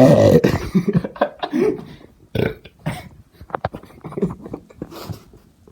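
A person burping: a long, loud, low-pitched burp ends about half a second in. It is followed by a string of short, quieter, irregular throat and mouth noises.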